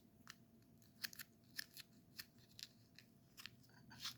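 Faint, scattered light clicks and crinkles of a ramen seasoning packet being handled and emptied into the bowl, about a dozen short ticks at an uneven pace.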